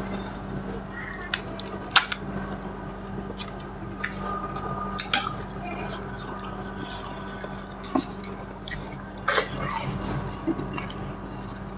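Scattered light clicks, clinks and wet squishes of pani puri being handled and eaten from a plate: puris cracked and filled with pani, and dish sounds. The strongest click comes about two seconds in, and a few louder knocks come near the end.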